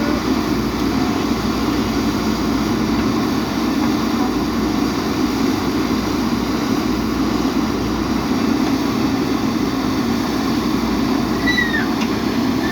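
Diesel engine of a JCB 3DX backhoe loader running steadily at working speed. A couple of short, high, falling chirps sound near the end.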